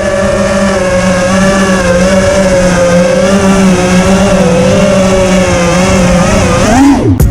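FPV quadcopter's brushless motors and propellers whining, a steady pitch that wavers slightly with throttle. Near the end the whine swoops up sharply and then drops away.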